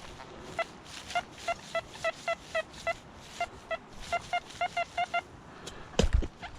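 Metal detector beeping over a buried target: a run of short, same-pitched electronic beeps, about three or four a second, then a sharp thump near the end.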